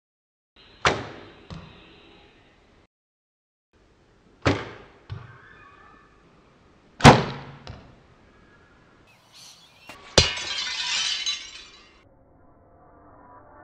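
Hoyt Charger compound bow shot three times, each a sharp snap of the released string followed about half a second later by a smaller knock of the arrow striking. Then an arrow hits a dinner plate: a sharp crack followed by about two seconds of shattering and clinking pieces.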